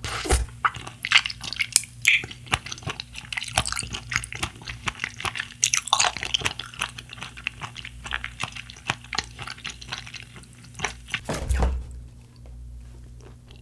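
Close-miked chewing of a chewy blue gummy jelly: a stream of wet, sticky mouth clicks and smacks.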